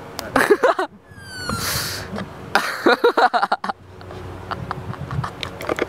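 People laughing: a burst of laughter about half a second in, a breathy outburst around a second and a half in, then a run of quick, choppy laughs around three seconds in.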